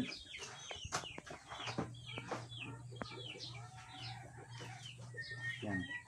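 Chickens clucking and calling in the background, a string of short, quick calls, with a few faint clicks in between.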